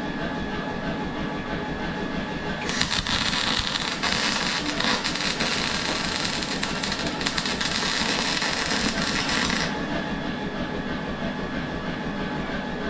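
Electric arc welding: a dense crackle starting about three seconds in and lasting about seven seconds, then stopping, over a steady workshop hum.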